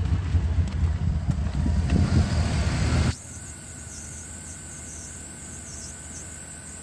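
Turbocharged 5.3 L LS V8 of a 1998 Chevy pickup idling, a steady low rumble. About three seconds in it cuts suddenly to a much quieter, thinner sound with a faint steady high whine.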